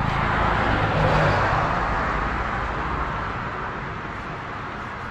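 Road traffic noise: a vehicle passing close by on a highway, loudest about a second in and then slowly fading.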